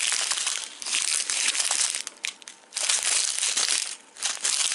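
Clear plastic bags of resin diamond-painting drills crinkling as they are handled and shuffled, in several bursts with short pauses between.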